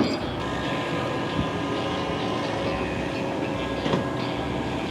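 Steady mechanical rumble and clatter from a large machine or vehicle, with a few faint steady tones and a sharp knock about four seconds in.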